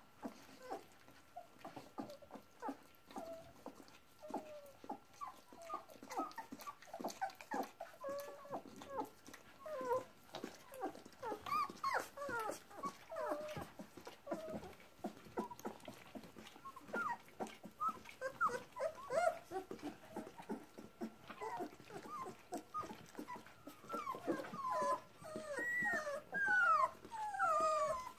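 A litter of two-and-a-half-week-old puppies squeaking and whimpering as they nurse, many short high cries that rise and fall in pitch, coming thicker and louder over the last few seconds.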